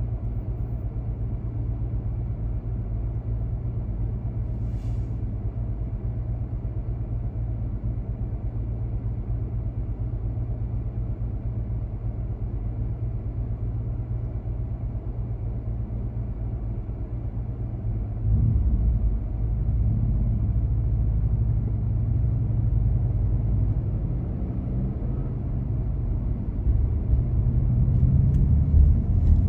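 Car driving on city streets: a steady low engine and road rumble. About eighteen seconds in it gets suddenly louder, with a rising and falling engine note, as the car accelerates, and louder again near the end.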